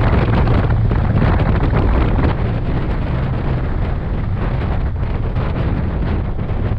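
Harley-Davidson Electra Glide's large V-twin engine running at cruising speed under heavy wind noise on the microphone, with a deep low rumble throughout; the overall level drops a little about two seconds in.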